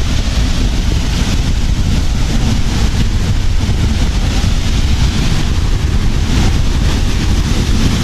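Waterfall rushing steadily, with wind buffeting the microphone in a low, uneven rumble.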